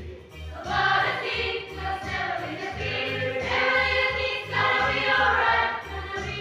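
High-school choir singing together, with a low pulse about twice a second underneath.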